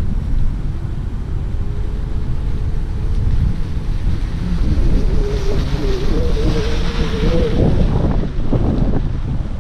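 Wind buffeting the microphone, with a self-driving sedan rolling past at low speed from about halfway: tyre noise on the asphalt and a wavering tone rise as it nears, then ease off near the end.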